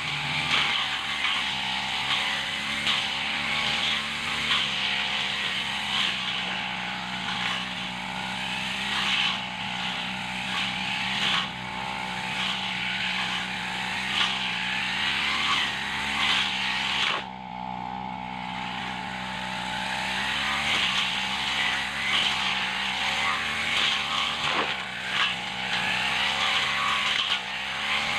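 Petrol brush cutter running at high speed as its spinning head cuts through grass and weeds in steady sweeps. A little past halfway the high cutting whine drops away for about two seconds, then picks up again.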